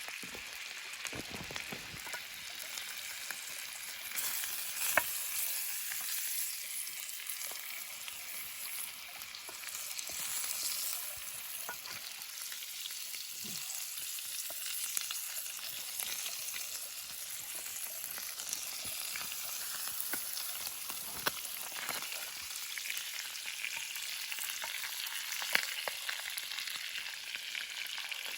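Ribs searing in a frying pan: a steady sizzle with scattered sharp ticks and pops, getting louder about four seconds in.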